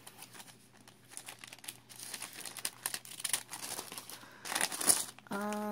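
Plastic and paper snack packaging crinkling and rustling as it is handled, in irregular crackles that grow loudest about five seconds in. Near the end a short, steady hum of a voice comes in.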